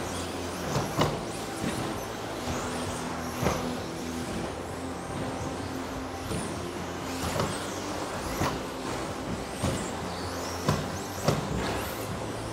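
Modified-class 1/10 electric stadium trucks racing: brushless motors whining up and down in pitch as the trucks accelerate and brake, with about seven sharp knocks of trucks landing or striking the track.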